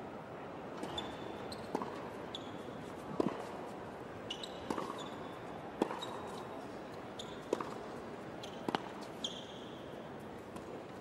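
Tennis rally on a hard court: sharp racket strikes on the ball and ball bounces, about one every second or so, with short high squeaks of tennis shoes on the court surface, over a low steady background of the arena.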